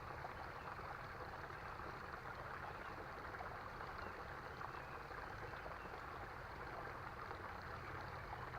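Small creek's water running with a steady, faint rushing sound.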